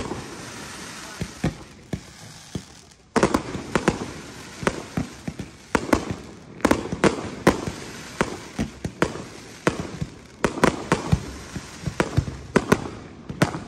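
Aerial fireworks display: shells bursting in a dense, irregular series of bangs over a steady hiss and crackle. The bangs are sparse for the first three seconds, then come in quick succession.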